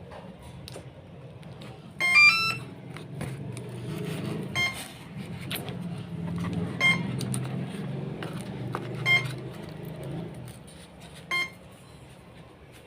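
Brushless motor driven by a 30 A ESC sounding its power-up tune, a quick run of rising tones about two seconds in, then a single short beep repeating about every two seconds. The tune is the ESC's sign that the battery has just been connected.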